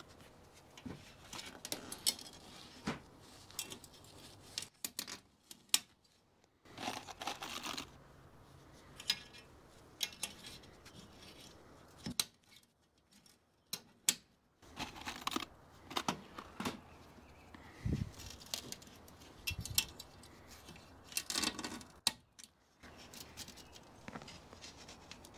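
Hand work on greenhouse glazing: scattered light clicks and knocks of small parts and tools, with three short rasping, tearing sounds about a second each.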